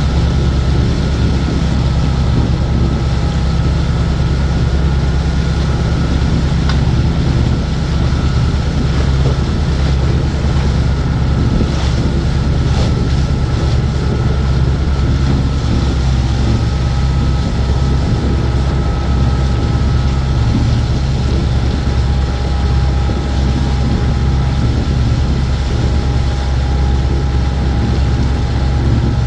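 Island Packet 420 sailboat's inboard diesel engine running steadily under way, a continuous low drone with faint thin steady tones above it.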